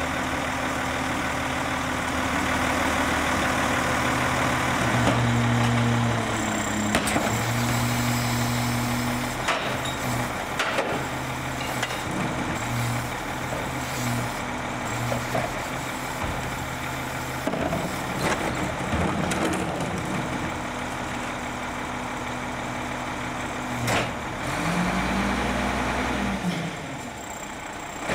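A 1995 Ford L8000 rear-loader garbage truck's engine runs steadily at the curb while its rear cart tipper and hydraulics work, dumping a trash cart into the hopper. There are scattered knocks of the cart and lifting gear, and a rising-then-falling sweep in pitch near the end.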